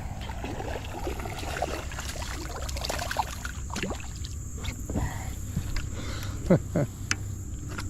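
Water splashing and scattered handling knocks as a hooked largemouth bass is fought and brought in beside a kayak, with a couple of short, falling-pitch voice sounds near the end.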